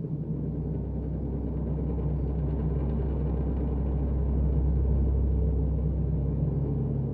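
A deep, steady rumbling drone, a dark horror-ambience sound effect with a low hum under it, swelling slightly toward the middle.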